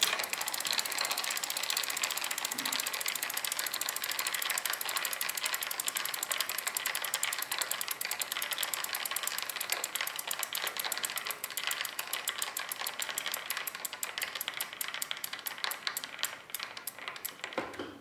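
The freewheel body on a pedelec's rear hub motor ratcheting as the wheel spins: a fast, steady train of pawl clicks that thins out near the end. This freewheel is defective, and the sound is taken as the sign that something inside is not right.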